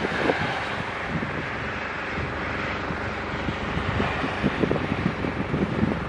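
Wind gusting across the microphone: a steady rushing noise with uneven low rumbling buffets.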